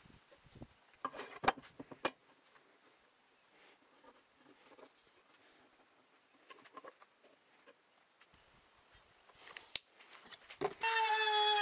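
Steady high-pitched insect drone, with a few sharp clicks from handling the shelf board and hardware while marking it with a pencil. Violin-led background music comes in near the end.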